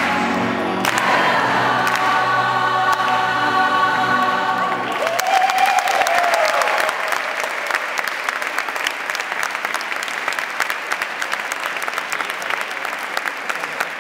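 Gospel choir holding a long sung chord that cuts off about five seconds in. Applause breaks out, with one voice cheering over it briefly, and the clapping carries on.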